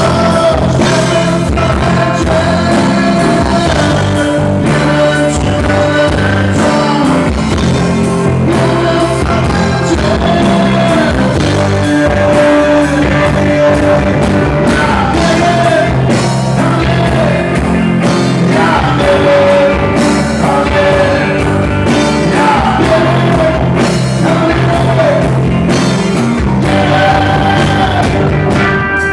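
Rock band playing live: a male singer's voice over amplified electric guitars and drums.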